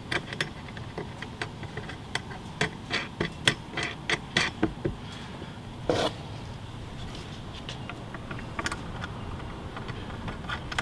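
Irregular clicks and ticks of hands fitting and turning plastic caps onto the bolts that fix a sofa arm to the wooden base frame. The clicks come thickly at first, with one louder knock about halfway through, then grow sparser.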